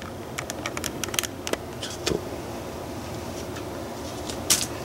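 Light clicks and taps of a small plastic superglue tube and its cap being handled, with one sharper click about four and a half seconds in.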